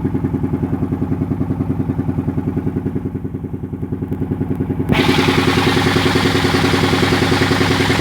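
The engine of a sago machine runs with a steady, even pulsing beat. About five seconds in, a loud rushing noise cuts in abruptly on top of it and carries on.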